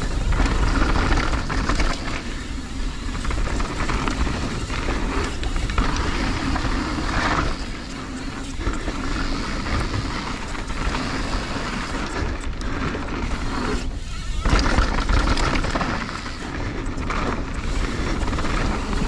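Mountain bike descending a dirt bike-park trail: wind rushing over the camera microphone with a low rumble, and the tyres rolling on the dirt. There are brief lulls and then a louder jolt about fourteen and a half seconds in.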